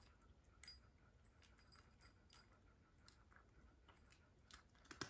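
A cat crunching dry cat food: faint, scattered crunches and clicks, the loudest one near the end.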